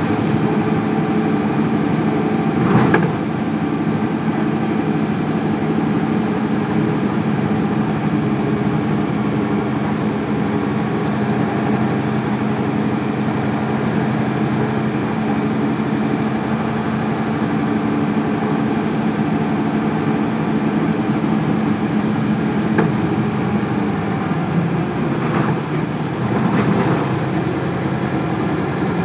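Isuzu 8PE1 V8 diesel engine of an Isuzu Cubic KC-LV380L bus running steadily. A short knock comes about 3 seconds in, and a brief hiss of compressed air near the end.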